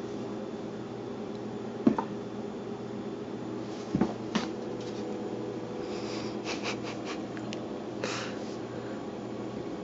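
A cat moving about in a cardboard scratcher box: a few sharp knocks and taps, a quick run of clicks and a short scratchy rustle of cardboard, over a steady low household hum.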